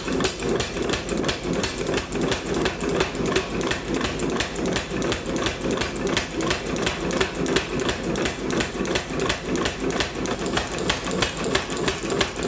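Steady run of hammer blows on hot steel bar, about three a second, over a constant mechanical hum from the shop.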